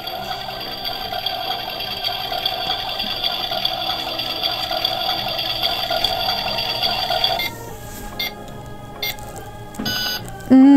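Toy oven's electronic cooking sound effect, played after its chicken button is pressed: a steady electronic tone for about seven seconds that cuts off suddenly, followed by a few short electronic tones.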